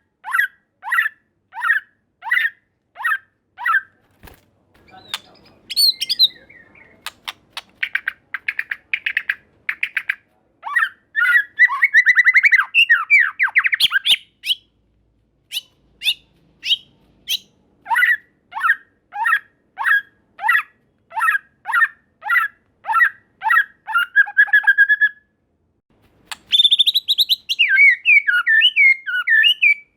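White-rumped shama singing: series of repeated down-slurred whistled notes, about two a second, broken by a stretch of fast rattling trills and clicks in the middle and varied warbled phrases near the end.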